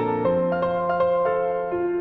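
Background music: a solo piano playing a cover of a K-pop song, a melody of evenly spaced notes over held lower notes.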